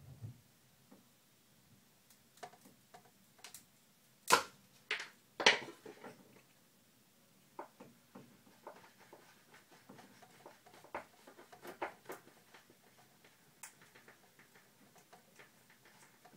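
Irregular small clicks and taps of a Victorinox Farmer pocketknife cutting a notch into a soft-wood stick, with two louder knocks about four and five and a half seconds in.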